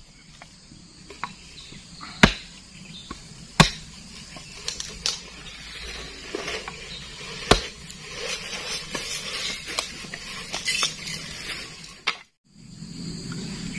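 Insects chirring steadily, with a few sharp knocks: three loud ones about two, three and a half and seven and a half seconds in, and lighter clatter after them. The sound drops out briefly near the end.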